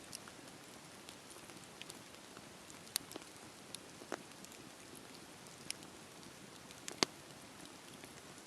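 Wood fire crackling: a steady soft hiss with irregular sharp pops and snaps, the loudest about seven seconds in.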